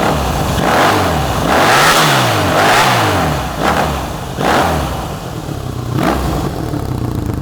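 Honda VF500F2's V4 engine, fitted with a Harley-Davidson exhaust pipe, revved in about six quick blips, each rising and dropping back toward idle.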